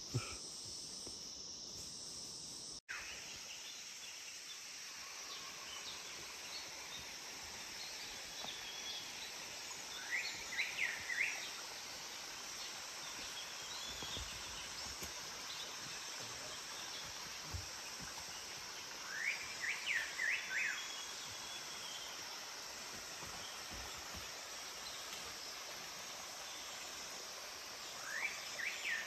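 Forest insects keep up a steady high-pitched drone. A bird calls a short burst of quick notes three times, about every nine seconds.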